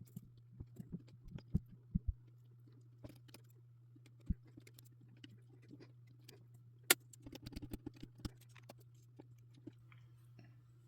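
Small scattered clicks and rattles of jumper wires being handled and pushed into breadboard holes, some in quick clusters, over a steady low hum.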